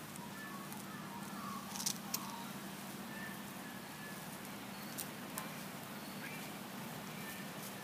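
Quiet outdoor ambience: a steady low hum with faint, short bird chirps scattered throughout, and a few sharp clicks about two seconds in and again around five seconds.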